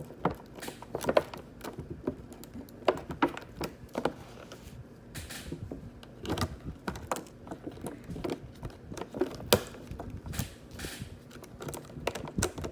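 Irregular small clicks and taps of a plastic action figure and its plastic packaging being handled.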